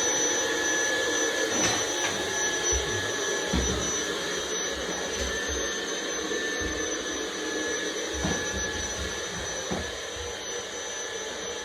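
Steady mechanical whir with a thin high whine, fading slightly toward the end, with a few low bumps of handling.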